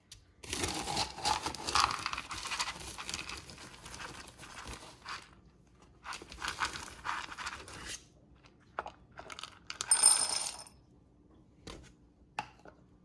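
Dry dog kibble rattling and pouring in plastic zip-top bags, a dense clatter of small hard pellets with plastic crinkling, in two long stretches. About ten seconds in, a louder short clatter as kibble goes into a ceramic bowl, then a few single clicks.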